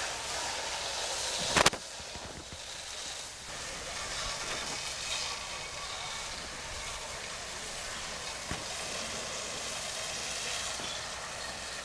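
Steady hissing of a fire hose jet and steam as water hits a burning transformer station, with one sharp crack about a second and a half in.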